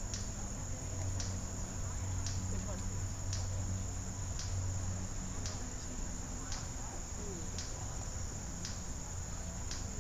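Insects chirring in a steady high-pitched chorus, with a regular pulse about once a second, over a low steady hum.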